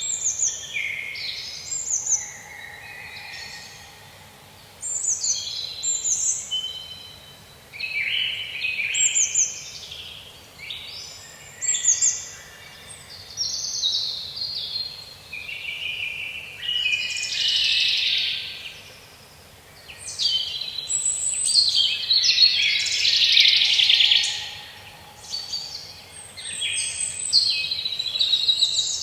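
Several songbirds singing in overlapping phrases of quick chirps, trills and whistled sweeps, one song following another with hardly a pause.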